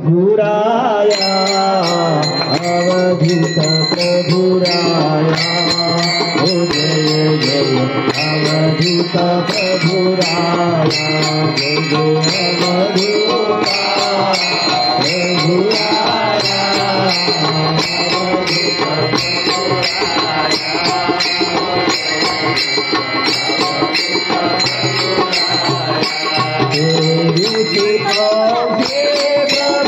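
Devotional singing, a chanted melody with instrumental accompaniment and a steady percussive beat about twice a second.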